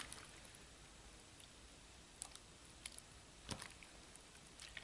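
Faint wet clicks and squelches of hands squeezing and crushing lumpy clear-glue and borax slime in a bowl of water, a handful of short sharp ones, the strongest about three and a half seconds in.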